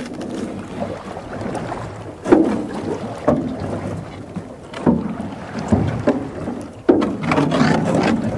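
Small boat being paddled and pushed off through floating sea ice. There are about five irregular knocks and splashes from the paddle against the hull and water over a steady noisy background.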